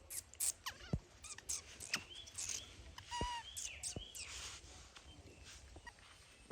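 Baby monkey giving several short, high-pitched squeaky calls in the first four seconds, mixed with sharp clicks and taps.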